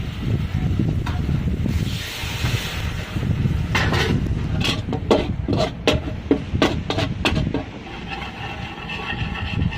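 Cooking clatter: a quick run of sharp knocks and clinks of utensils against pans or dishes over a steady low rumble, with a short hiss a couple of seconds in.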